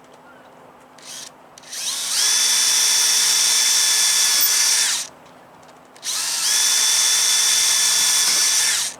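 An electric power tool runs twice for about three seconds each time, its motor whine rising in pitch as it spins up, then holding steady.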